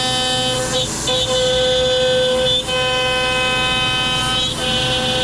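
CNC router spindle running a bit through ash, a loud steady whine with many overtones, with the spindle turned down to about 15,300 rpm. The tone breaks briefly about every two seconds as the cut changes.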